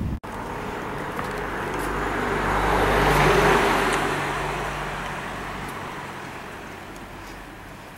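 A motor vehicle passing by on the road: engine and tyre noise build to their loudest about three seconds in, then fade away.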